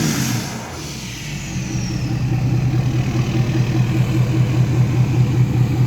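Ford 6.7 Power Stroke V8 turbo-diesel dropping back to idle right after a rev. The turbo whistle falls in pitch as it spools down over about two seconds, then the engine settles into a steady idle.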